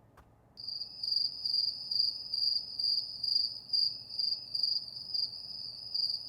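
Car's electronic warning chime: a steady high beep pulsing about twice a second, starting about half a second in after a faint click.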